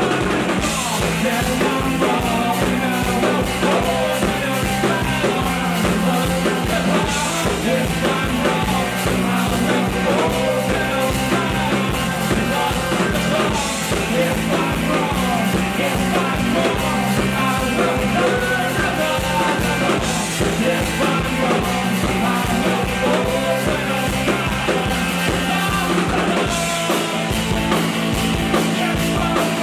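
Rock band playing live and loud: a singer over electric guitar, electric bass and a drum kit keeping a steady driving beat.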